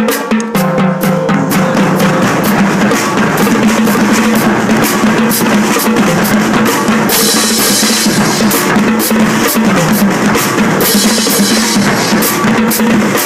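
Marching drumline playing a fast, dense cadence of snare and bass drums without a break, with a bright hissing wash coming in about halfway.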